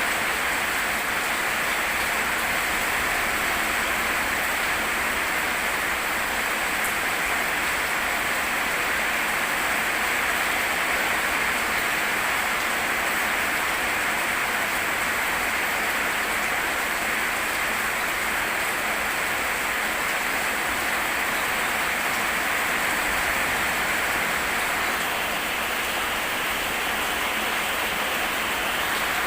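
Rain falling steadily, an even, unbroken hiss with no let-up.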